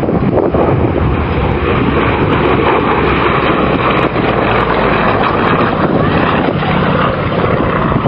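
Yakovlev Yak-52's nine-cylinder radial engine and propeller running steadily.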